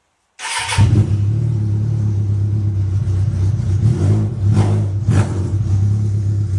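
A 1998 Suzuki Katana 750's inline-four engine, running with its muffler removed through an open short exhaust, starts up about half a second in. It then runs loud and steady, with two brief rises near the end.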